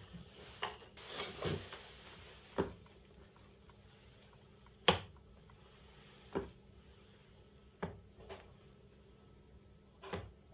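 Scattered wooden knocks and clicks from a hinged birch-plywood arm, jointed with steel door hinges, being moved by hand: about seven separate taps, the loudest about five seconds in.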